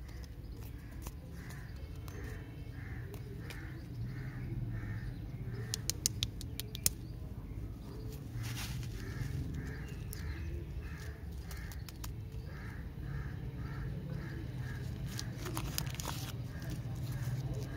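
A crow cawing in runs of short calls, about three a second, with a few sharp crinkles and clicks of a plastic candy wrapper being handled and torn open.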